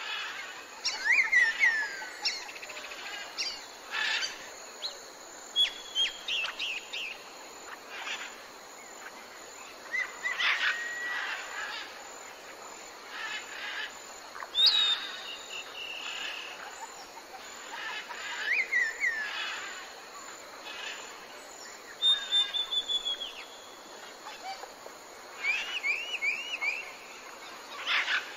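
Several birds calling: short chirps, falling whistles and quick trills every second or two over a faint steady outdoor hiss.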